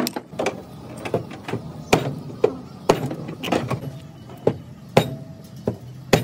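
Hammer blows on a dented car rear quarter panel as the sheet metal is knocked back into shape: sharp metallic knocks at an uneven pace, roughly two a second.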